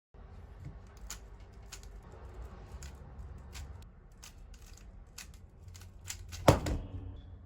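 Plastic speed cube being turned by hand: irregular clicks and clacks of the layers, with one louder knock about six and a half seconds in.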